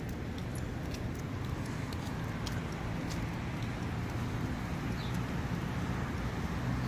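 Steady road traffic noise with a car engine humming, a little louder near the end, and a few faint ticks.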